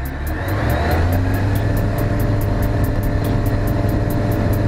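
Ikarus C42 ultralight's engine and propeller at takeoff power on the takeoff roll. The engine note rises over the first second as it comes up to full power, then holds steady and loud.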